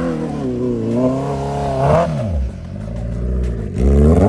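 Superbike engine being revved hard, its pitch rising and falling repeatedly, dropping about two seconds in and surging sharply just before the end.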